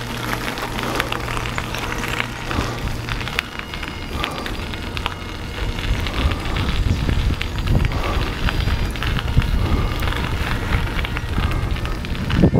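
Bicycle tyres rolling over a gravel path, a steady crackling with scattered small clicks of grit, and wind rumbling on the microphone that grows stronger about halfway through.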